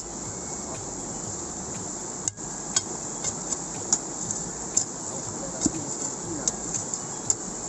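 Long steel bar being driven into rock at the edge of a mountain stream, giving irregular sharp metallic clicks and knocks as it chips and pries material out of a crevice, over the steady rush of the stream.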